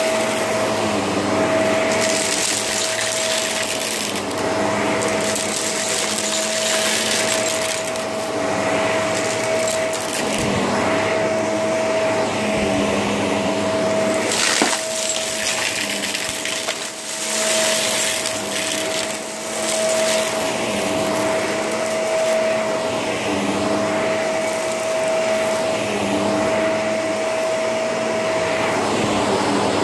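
Shark vacuum cleaner running, with a steady motor whine under a rush of air that swells and eases now and then.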